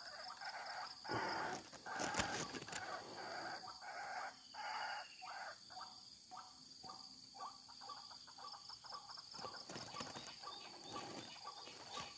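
A bird calling repeatedly in a series of harsh notes, breaking into quicker pulsed notes in the second half.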